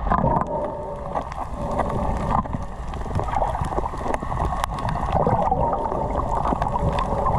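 Muffled underwater water noise, a dense steady rush, from water moving around a camera filming while snorkelling, with many faint sharp clicks scattered through it.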